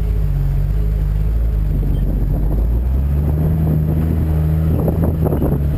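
Suzuki 4x4's engine running while driving off-road, its note shifting about halfway through, with a rough crackling building near the end.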